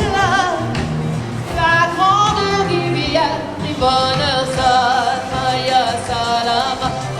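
A song with a singer holding long notes with vibrato over a backing band with a steady bass line.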